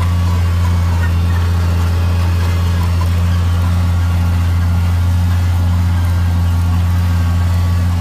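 John Deere 7700 tractor's six-cylinder diesel engine running steadily under load while pulling a seven-furrow reversible plough, a constant low drone.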